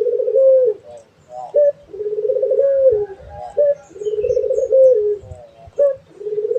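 A puter, the domestic ringneck dove, cooing. Each phrase is a long rolling coo of about a second followed by a short clipped note, and the phrase repeats about every two seconds, three times over.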